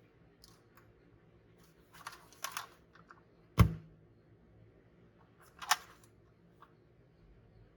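Hands handling the packaging of a diecast model car: scattered light rustles and clicks, a sharp knock about three and a half seconds in, and a crisp click about two seconds later.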